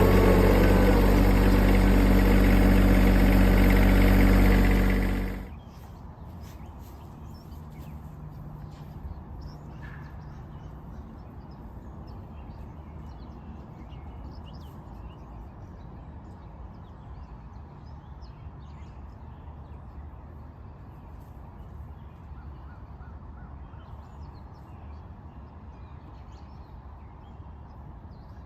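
Tractor engine idling steadily, then shut off about five seconds in. Afterwards quiet farmyard background with faint scattered bird calls.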